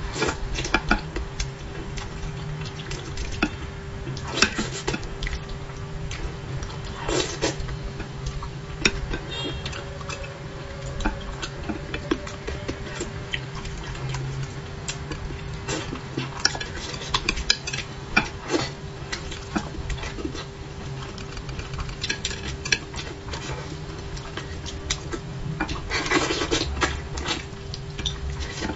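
Chopsticks clicking and scraping against a ceramic bowl and a dish of braised fish, with chewing and eating sounds, many small irregular clicks over a steady low hum.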